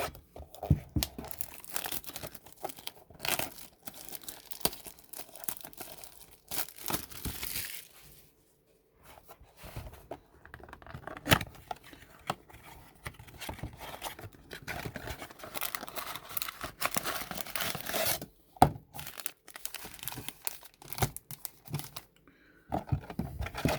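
Baseball card packs and their cardboard blaster box being torn open by hand, the wrappers crinkling and tearing in irregular bursts. There is a brief lull partway through and a few sharp clicks.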